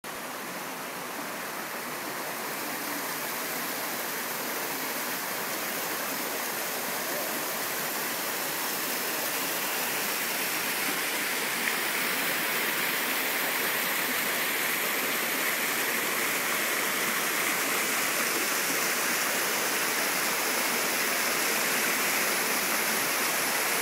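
Mountain river water rushing and splashing down small cascades over granite ledges into rock pools: a steady rush of water that grows gradually louder.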